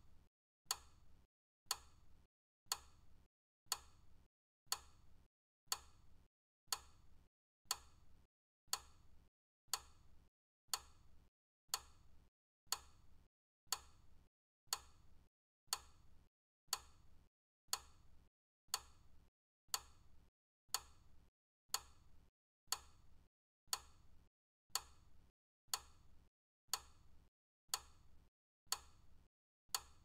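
Timer's ticking sound: a sharp, even tick once a second, keeping time with the counting seconds.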